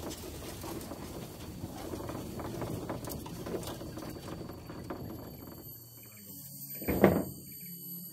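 Dense crackling and rustling with many small clicks for about six seconds, then it falls away. Music comes in, with a loud sudden hit about seven seconds in.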